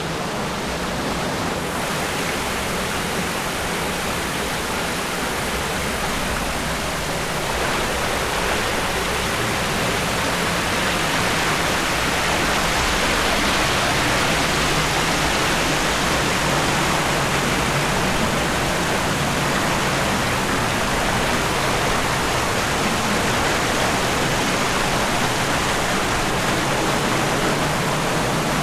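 Waterfall pouring into a pool: a steady, even rush of falling water that grows somewhat louder partway through.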